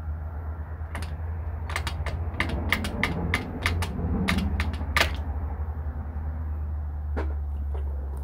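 A metal pry tool clicking and tapping against an LS engine block as it works the crankshaft position sensor loose, in about a dozen irregular sharp clicks followed by a couple more near the end. A steady low hum runs underneath.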